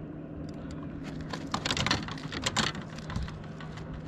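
Boat motor running with a steady low hum while the boat trolls, with a burst of rapid crackling clicks and taps in the middle that are the loudest sound.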